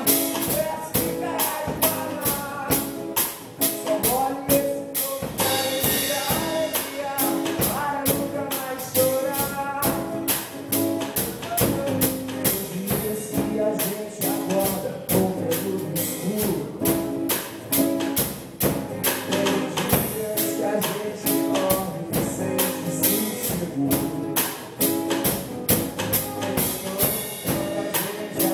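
Band music with a fast, steady percussion beat, tambourine-like, under a pitched melody line.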